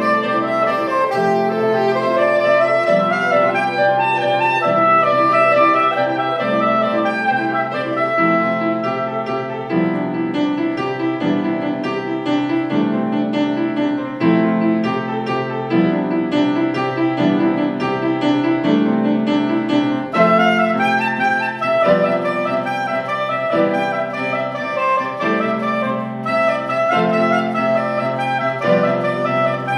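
Soprano saxophone and grand piano playing together: the piano repeats a steady chord pattern while the saxophone plays a melody above it. The saxophone drops out for a stretch partway through, leaving the piano alone.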